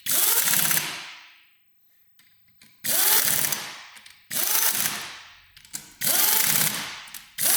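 A power tool run in short bursts, five in all, each about a second long, starting sharply and fading away.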